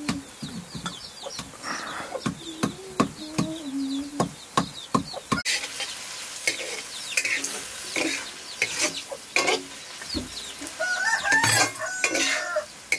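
A stone pestle knocks in a stone mortar about three or four times a second for the first five seconds, with hens clucking. Then an iron ladle stirs and scrapes chopped greens sizzling in an iron wok over a wood fire, and a rooster crows near the end.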